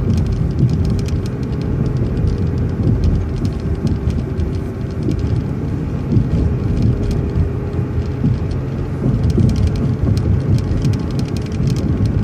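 City transit bus in motion, heard from inside: a steady low rumble of engine and road with a constant hum, and many light rattles and ticks from the bus body.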